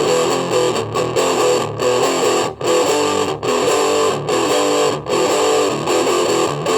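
Electric guitar played through distortion and effects, strumming chords with short breaks between phrases.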